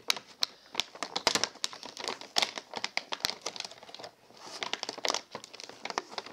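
Clear plastic blister packaging of a headphone set crinkling and clicking as hands pry and flex it open, in dense, irregular crackles and snaps.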